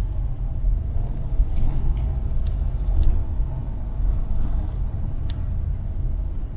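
Steady low rumble of a car driving slowly, heard from inside the cabin: engine and tyre noise, with a few faint light ticks.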